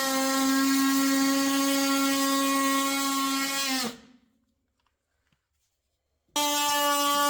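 DeWalt oscillating multi-tool running at a steady high-pitched buzz while cutting a thin floor sheet; it stops abruptly a little under four seconds in, leaving near silence for about two and a half seconds, then starts again straight at full speed.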